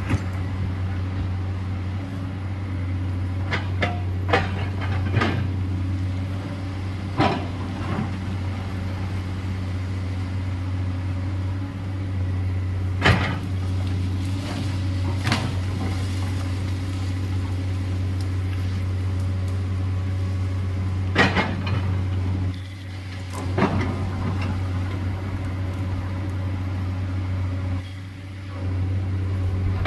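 A heavy excavator's diesel engine runs steadily at a constant hum. About eight sharp knocks and clunks are scattered through it, typical of the bucket striking earth and rock.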